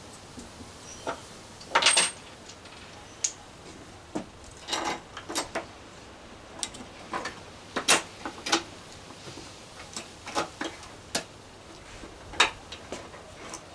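Irregular clicks, taps and short metallic rattles of a screwdriver and small fasteners being worked at the mounting of a metal grab rail on a Vespa scooter's bodywork.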